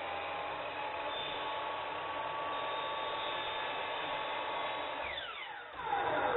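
Ryobi sliding compound miter saw running and cutting a wooden trim piece, with a steady motor whine. Near the end the whine falls sharply in pitch as the blade spins down.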